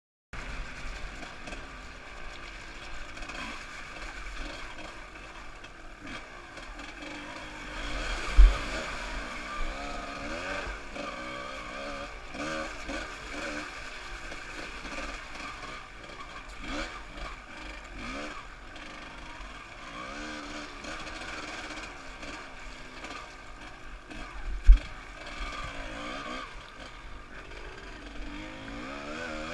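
Yamaha WR200 two-stroke enduro motorcycle engine heard from the rider's helmet, rising and falling in pitch as the throttle is worked over rough, muddy ground. Two sharp thumps stand out, about 8 seconds in and again near the end.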